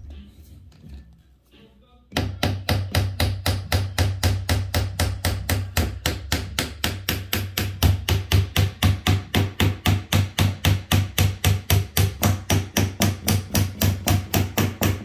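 Hammer tapping a bent steel hinge pin down into a door hinge: rapid, even metal-on-metal taps at about four a second, starting about two seconds in. The bend in the pin makes it fit tightly, so it has to be driven home.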